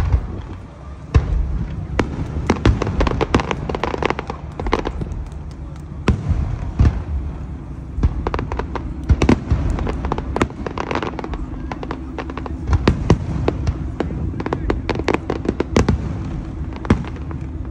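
Aerial fireworks shells bursting in a steady run of sharp bangs and crackles, with a constant low rumble beneath them.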